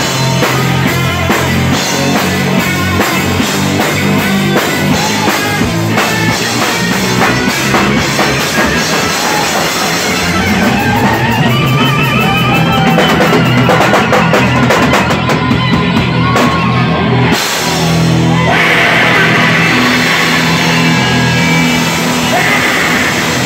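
A live rock band playing loud: electric guitar over a drum kit with crashing cymbals.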